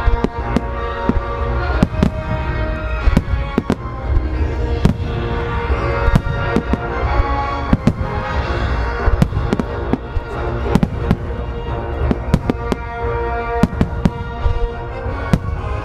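Nomura Fireworks Industry display fireworks going off in a rapid finale: dozens of sharp bangs from bursting shells and launches at irregular intervals, over a continuous low rumble. Music with held tones plays underneath.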